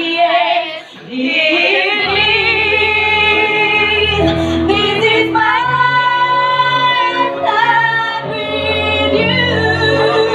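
A woman singing a song with long held, wavering notes over a backing track; the music dips briefly about a second in, then bass notes come in.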